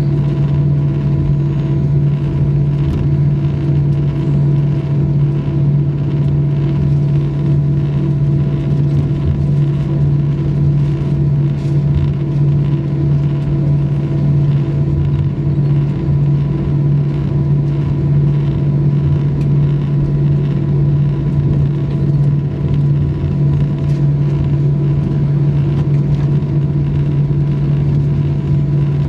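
Airbus A320 cabin noise while taxiing, heard from over the wing: the jet engines running at idle as a steady drone with a constant low hum, over a low rumble from the airframe rolling along the taxiway.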